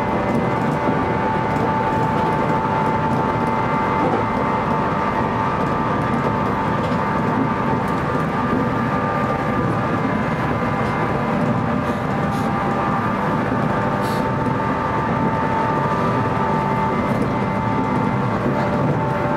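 Electric train running at a steady speed, heard from inside the front car: wheel-on-rail rumble with a steady whine of several held tones, and a few faint clicks about twelve and fourteen seconds in.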